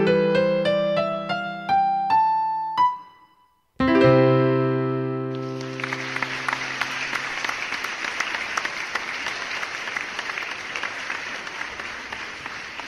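Piano playing a rising line of single notes, a brief pause, then a final held chord about four seconds in that ends the piece. Audience applause breaks out about a second later and slowly fades.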